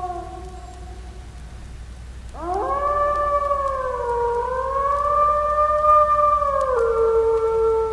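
Wolf howling: the tail of one howl fades out at the start, then about two seconds in a new long howl swoops up, wavers in pitch, and near the end drops to a lower note that it holds.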